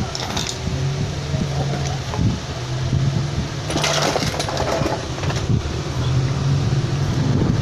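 A socket wrench on a long extension bar turning a bolt on a small motorcycle engine, with a burst of rasping metal clicks about four seconds in. A low mechanical hum from a nearby machine runs underneath and drops out briefly a few times.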